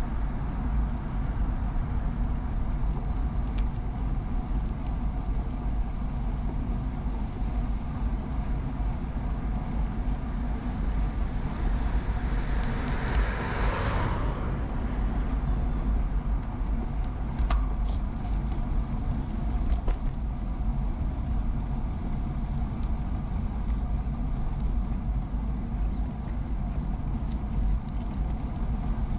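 Steady low rumble of wind and road noise while riding a vintage Peugeot UJ-10 ten-speed bicycle. A car passes about halfway through, rising and fading over about three seconds.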